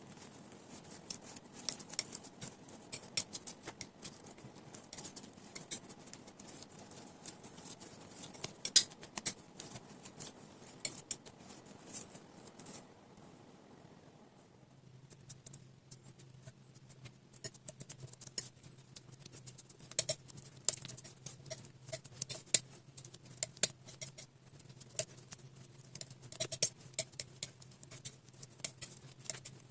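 Slime being mixed and squished by hand: rapid, irregular sticky clicks and crackles. They pause briefly about halfway through, and after the pause a faint steady low hum runs underneath.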